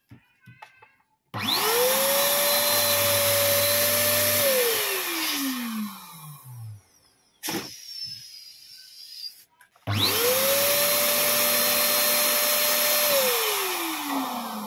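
Electric balloon pump switched on twice, each time spinning up quickly and running steadily for about three seconds while blowing up a latex balloon, then winding down with a falling pitch once switched off. A short click falls between the two runs.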